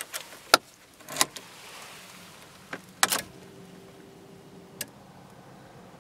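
Ignition key of a 2013 Skoda Fabia going into the steering-column lock and being turned to the on position: a few sharp clicks and clacks spread over several seconds, with a faint steady hum lasting about a second and a half between the last two.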